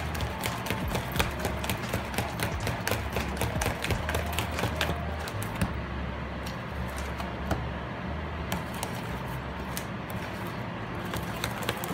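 A spoon stirring thick cornbread batter in a plastic mixing bowl, with quick irregular clicks and scrapes against the bowl that thin out past the middle, over a steady low hum.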